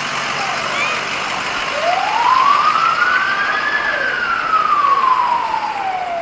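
Ambulance siren sounding one slow wail: the pitch rises for about two seconds, then falls away steadily.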